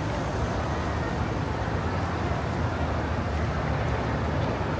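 Steady low rumble of outdoor city ambience.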